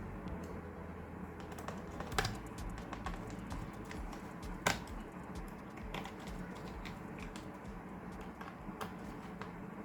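Scattered light clicks and taps on the laptop's plastic case, with two sharper knocks about two and four and a half seconds in, over a steady low hum.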